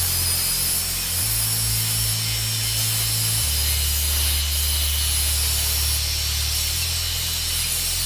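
Ryobi angle grinder running steadily against rusty steel tubing, a continuous high-pitched grinding whine. A music track with sustained bass notes plays underneath, changing note about a second in, again after three seconds, and near the end.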